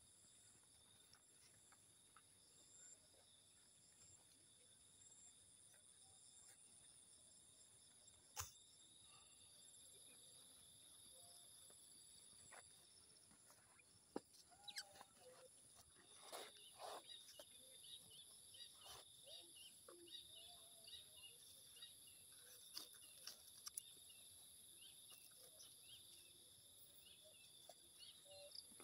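A faint, steady insect chorus of several high, unbroken shrill tones, with scattered light clicks, knocks and brief chirps in the second half.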